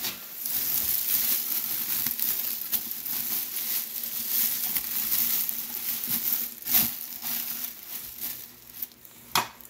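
Plastic Reynolds Kitchen oven bags crinkling as they are opened out and smoothed by hand into a stockpot, a continuous rustle with a couple of sharper crackles in the second half, quieter near the end.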